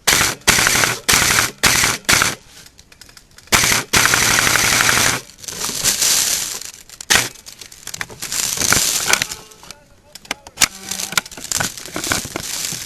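Airsoft guns firing full-auto: several short bursts in quick succession over the first two seconds, then a longer burst of about a second and a half, with scattered shots after.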